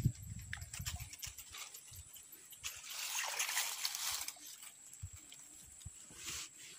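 Light splashing and rustling in shallow swamp water and grass, loudest for about a second and a half a few seconds in, with a shorter rustle near the end. A thin, steady high insect whine runs underneath.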